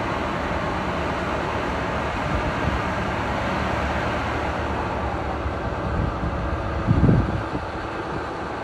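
Siemens Charger diesel-electric locomotive running steadily beside the platform. A brief low thump about seven seconds in is the loudest moment.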